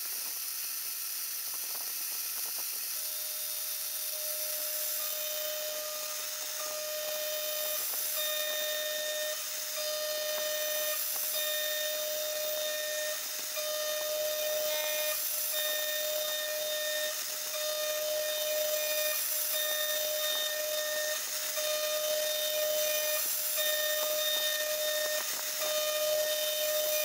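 CNC router spindle running at 22,000 rpm over a steady high hiss. From about three seconds in, a 3 mm end mill cutting a 12 mm copper-alloy block adds a high whine that comes and goes in short passes of one to two seconds each.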